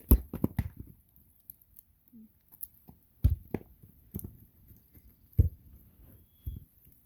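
Scattered sharp knocks and taps: a quick run of them at the very start, then single thumps about three, three and a half, five and a half and six and a half seconds in.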